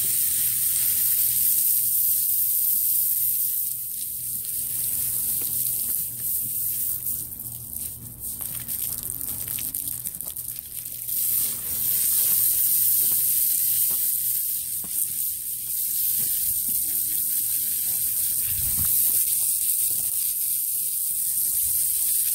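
Water spray from a hose wand hissing steadily as it washes down a hanging hog carcass, easing off briefly near the middle. A steady low hum runs underneath.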